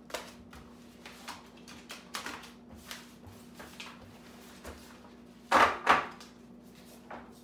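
Glossy paper flyers being shuffled like cards and dealt onto a wooden table: a string of short paper rustles and light slaps. About five and a half seconds in come two louder, sharp knocks as the stack is struck on the tabletop.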